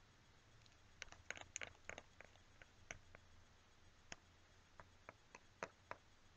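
Faint, scattered small clicks and ticks of paper being handled as pages of a book are leafed through, over a quiet room hum.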